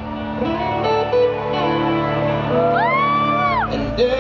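Acoustic guitar played live, with a single high whoop that rises, holds and falls away about three seconds in.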